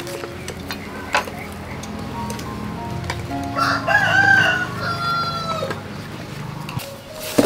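A rooster crows once, about halfway through: a single call of about two seconds that rises, bends and then holds before it trails off. Light background music plays under it.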